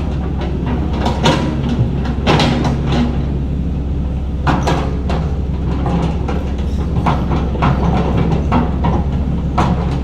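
Diesel engine of heavy earthmoving machinery running steadily, with repeated irregular metal clanks and knocks from the machine at work.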